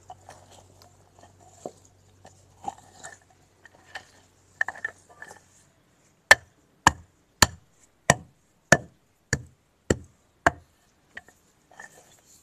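A heavy wooden rod pounding the earth at the foot of a brick wall: eight sharp, evenly spaced knocks about 0.6 s apart in the second half, after softer scraping and tapping as the soil is worked.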